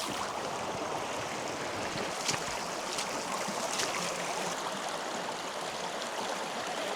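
Kanarra Creek rushing steadily over rocks, with a few faint splashes about two, three and four seconds in.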